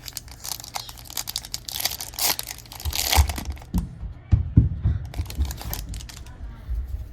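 A foil trading-card pack wrapper being torn open and crinkled in the hands, with a few dull knocks of handling around the middle.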